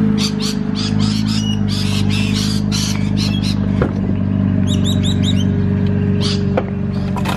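A car engine idling steadily, with birds chirping and squawking over it and a couple of faint knocks.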